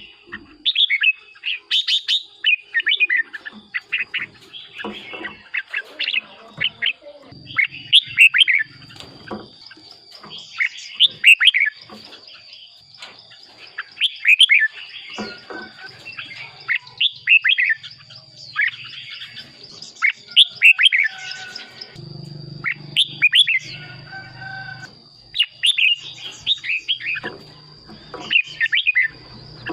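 Red-whiskered bulbul singing: short bursts of quick, sweeping whistled notes, repeated every second or two. A thin, steady high whine runs behind it, and a low hum joins in about halfway through.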